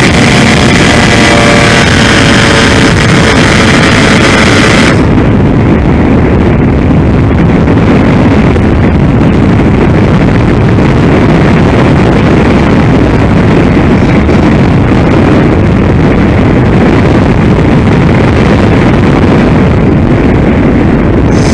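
Onboard view of a Multiplex Easy Star RC plane: its electric pusher motor whines steadily, then cuts out about five seconds in. After that there is only a loud wind rush and buffeting on the airframe as the plane glides with the power off.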